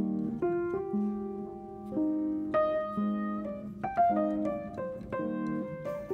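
Background piano music: a gentle melody of separate notes ringing over held lower chords.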